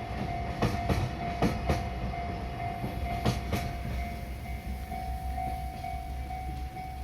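A level-crossing warning bell ringing in a steady repeating beat while a JR freight train's wagon wheels click over a rail joint in pairs. The wheel clicks stop about four seconds in as the train clears the crossing, and the bell keeps ringing.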